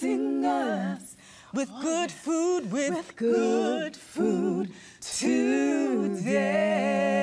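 Three women singing a gospel praise line a cappella, with vibrato, in short phrases and then holding a long note near the end.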